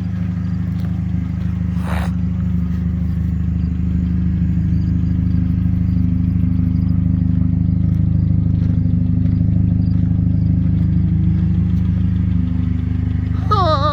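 A Chevrolet Cobalt SS engine running steadily, with one sharp click about two seconds in.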